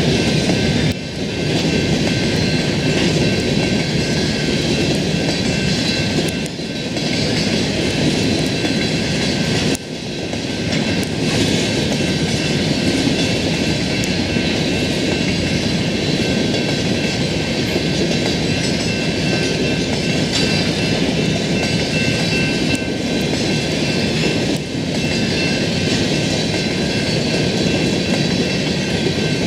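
Freight train's cars rolling past, with a continuous clatter of steel wheels on the rails and a few faint steady high tones over it.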